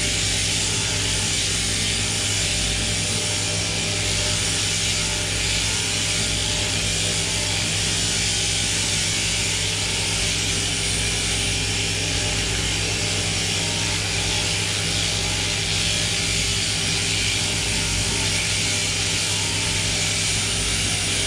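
Electric sheep-shearing handpiece and its drive running steadily as a lamb is shorn: an unbroken mechanical buzz over a steady motor hum.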